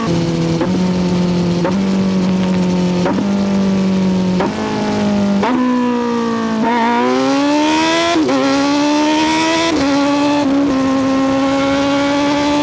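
Kawasaki Z900SE's 948cc inline-four engine running hard at high revs. Its pitch steps up and down several times, as at gear changes and throttle changes, with a steady climb in revs between about seven and eight seconds in.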